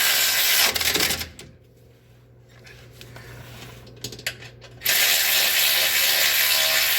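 Electric impact wrench driving the under-body panel's bolts in: it runs for about a second, stops, and runs again from about five seconds in. A few small metal clicks come in the pause.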